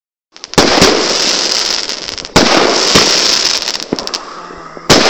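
Fireworks going off: sharp bangs about half a second in, again about two and a half seconds in and near the end, with dense crackling in between.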